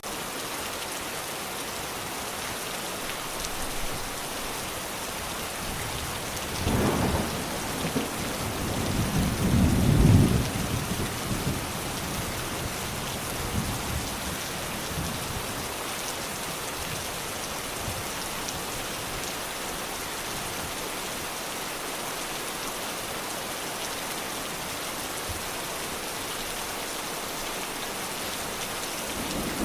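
Steady rain falling, with a roll of thunder that rumbles up about seven seconds in, is loudest around ten seconds and fades out; another low rumble of thunder begins at the very end.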